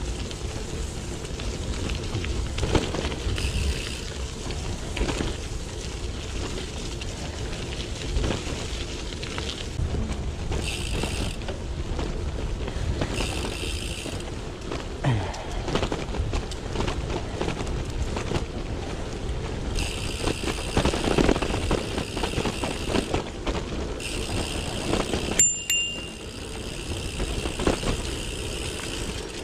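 Merida Silex gravel bike rolling over a leafy gravel track: a continuous rumble and crunch of tyres on gravel with wind on the microphone. In several stretches, while the rider coasts, the rear hub's freewheel buzzes steadily. About 25 seconds in there is a short high squeak.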